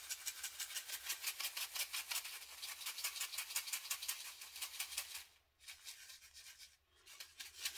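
Small plastic bag of resin diamond-painting drills shaken rapidly, the drills rattling against each other at an even pace of several shakes a second. The shaking stops briefly twice in the last few seconds.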